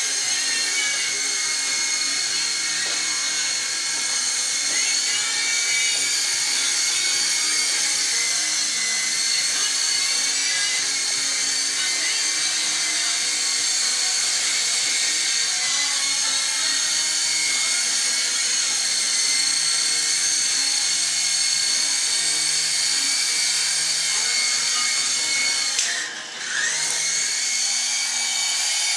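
Small electric motors of a SYMA S032 radio-controlled toy helicopter whining at a high pitch in flight, the pitch wavering slightly with the throttle. Near the end the whine drops sharply for a moment, then climbs back up.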